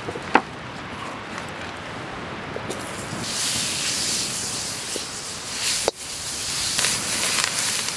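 Butter and chopped shallots sizzling in a wok over an open wood fire; the sizzle comes in about three seconds in, after a few light knocks.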